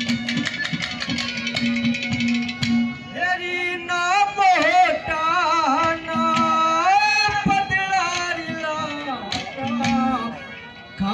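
Live Haryanvi ragni folk music: an instrumental passage with a steady held tone and drumming, then about three seconds in a man starts singing long, wavering held notes over the accompaniment, the music dipping near the end.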